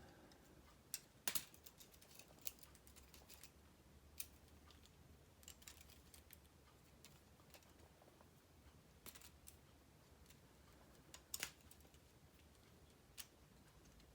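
K'nex plastic rods and connectors being unclipped and snapped into place: faint, scattered plastic clicks at irregular intervals, the sharpest a little over a second in and again about eleven seconds in.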